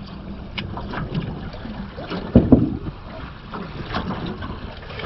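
Wind buffeting the microphone and water slapping a small drifting boat's hull, with two loud, sharp knocks close together about halfway through.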